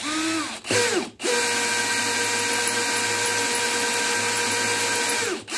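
DeWalt 12V cordless drill on low speed boring a letter-D bit through a 3D-printed jig into a plastic intake manifold's nitrous bung. Two short bursts to start the hole, then a steady run of about four seconds whose whine drops away as the drill winds down near the end.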